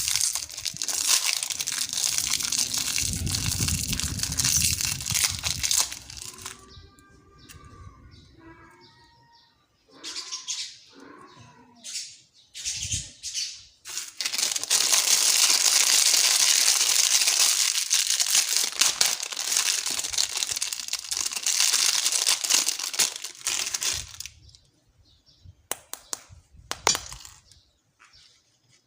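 Candy wrappers crinkling and rustling as candies and lollipops are unwrapped. There are two long stretches of dense crinkling, with a quieter gap of short crackles between them and another near the end.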